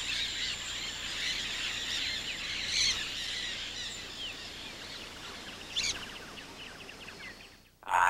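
A flock of parrots chattering: a dense mass of short chirping calls, with louder sharp calls about three and six seconds in. The chatter thins out and cuts off just before the end.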